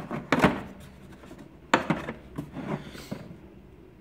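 A handful of short knocks and clunks with some rubbing as tools and their cases are handled and shifted in a tool box.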